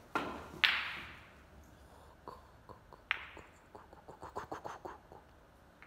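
Billiard cue tip striking the cue ball, then a sharp, louder clack as it hits an object ball. About two and a half seconds later another ball clack, followed by a quick run of light clicks as the balls knock and settle.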